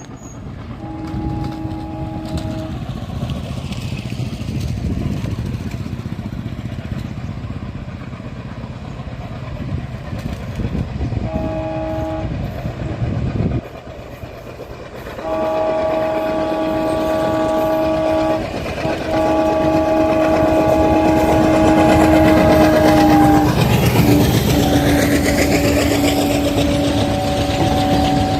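Indian Railways locomotive horn blowing: two short blasts, then long blasts, over the rumble of a freight train running through. Near the end, at its loudest, the horn's pitch drops as the locomotive passes.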